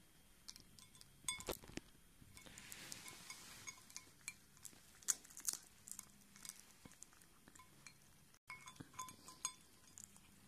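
Faint, irregular light clinks and taps against a feeding bowl, each ringing briefly, as a Siamese cat feeds from it.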